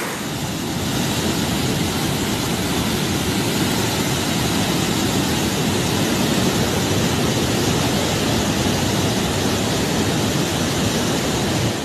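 Loud, steady rush of fast-flowing floodwater, a river in spate churning past, cutting off suddenly near the end.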